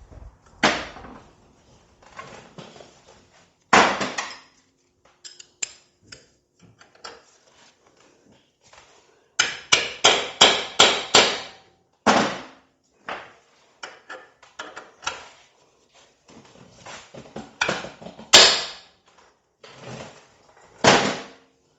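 A heavy hammer striking a hand impact driver, metal ringing on metal, to shock loose a stubborn bolt. Single blows come every few seconds, with a quick run of about six blows near the middle.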